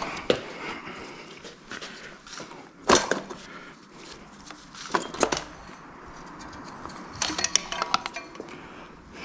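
Metal engine parts and tools being handled during an engine strip-down, clinking and knocking: a sharp knock right at the start, another about three seconds in, two more about five seconds in, and a quick run of small metallic clinks near the end.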